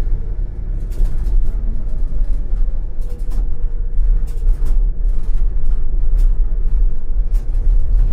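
ČKD Tatra T6A5 tram running along the track: a steady low rumble broken by irregular sharp clicks of the wheels on the rails.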